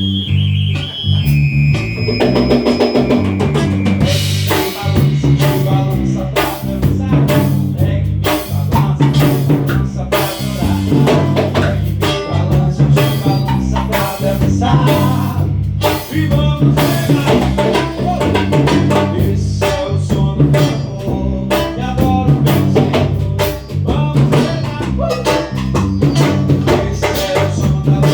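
Music with a drum kit playing a busy, steady beat over a bass line.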